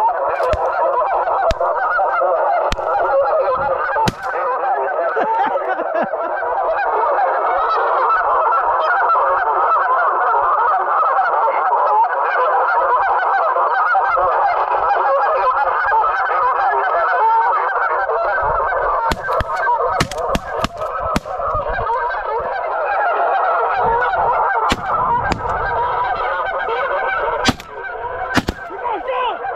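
A large flock of geese honking in a dense, unbroken chorus. Scattered knocks and bumps sound over it in the second half.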